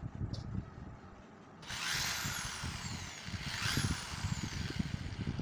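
Electric hand drill run in two bursts, boring holes into the plastic dome of a discarded LED bulb. Each burst carries a whine that falls in pitch, with handling knocks underneath.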